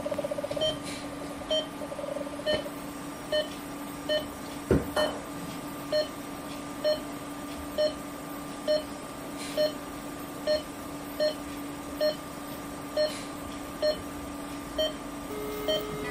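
Endoscopy-room patient monitor beeping steadily with each heartbeat, a little faster than once a second at the same pitch, over a steady electrical hum. A sharp click comes a few seconds in, and near the end a lower steady tone sounds for about a second as the argon plasma coagulation probe is applied to a lesion.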